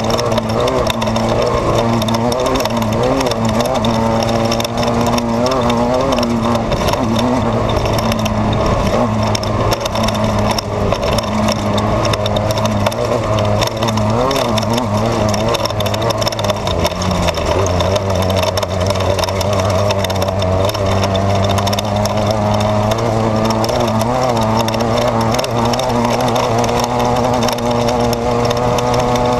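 Desert race car's engine heard from inside the car at race pace, its pitch wavering up and down with the throttle. A constant rough rumble and rattle from the car runs underneath. The engine note shifts lower about halfway through.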